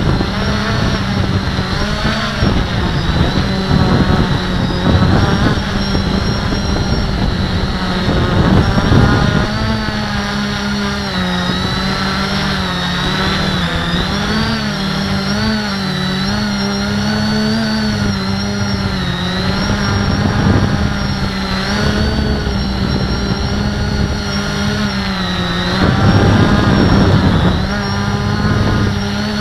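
The Q450 quadcopter's brushless motors and propellers whine steadily as heard from its onboard camera, the pitch wavering up and down with throttle. Gusts of rushing air noise come over it in the first several seconds and again near the end.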